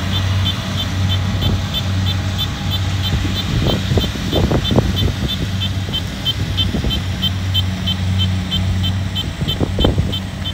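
Rice combine harvester's diesel engine running steadily with a low hum, a rapid high ticking about four or five times a second over it. Irregular rustling bumps come through in the middle and again near the end.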